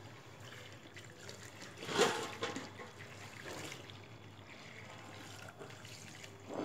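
Hands swishing and rinsing pomegranate arils in a plastic tub of water, with water trickling in from a hose; a louder splash about two seconds in.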